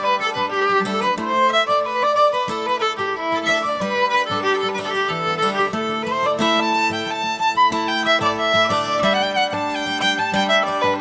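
Instrumental music with a fiddle playing a quick melody of short, changing notes.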